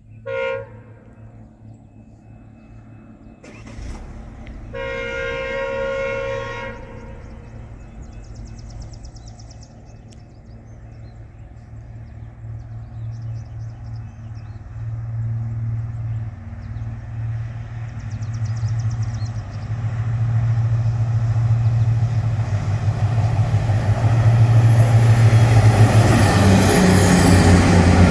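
Diesel train sounding its horn: a short toot at the start, then a longer blast about five seconds in. A low engine drone follows and grows steadily louder as the train approaches.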